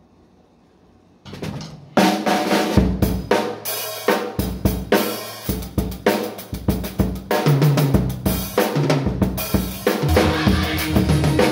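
Acoustic drum kit played with sticks: a few lighter strokes about a second in, then from about two seconds a full, steady groove of kick drum, snare and cymbals.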